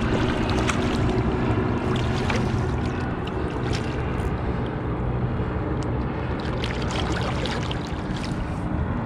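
A boat motor idling steadily, with a few light knocks over it.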